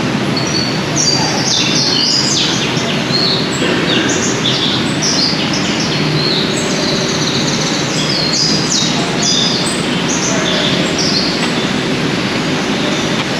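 Several small birds chirping, a quick run of short, high calls one after another that thins out near the end, over a steady background hiss.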